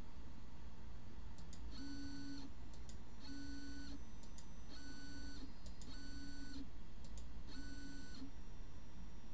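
midTbot pen plotter's stepper motors whining through five short moves, each about half a second long at one steady pitch, with short clicks just before each move.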